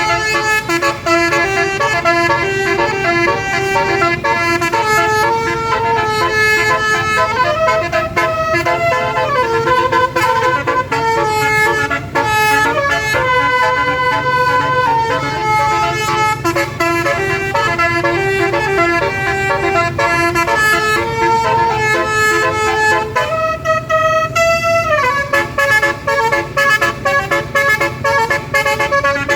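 Bus 'telolet basuri' multi-trumpet air horn playing a melody of stepped, chord-like tones. Near the end a held chord slides down in pitch. A steady low rumble of vehicle noise runs beneath it.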